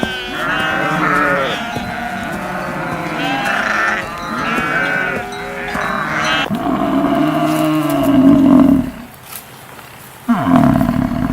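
Farm animals bleating: many overlapping wavering calls for about six seconds, then a longer, steadier call, a brief pause, and another call near the end.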